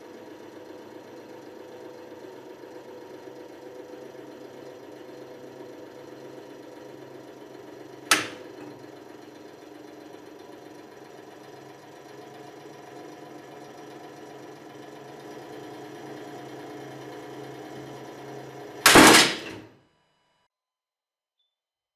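Hydraulic press humming steadily as it loads a steel scissor jack. A sharp crack comes about eight seconds in as the jack starts to yield. Near the end a loud bang lasting about a second marks the jack giving way under the ram.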